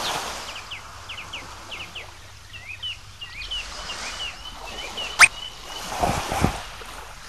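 Birds chirping in quick repeated short calls, then a sudden sharp whistle-like cartoon sound effect about five seconds in, the loudest moment, followed by a couple of short lower sounds.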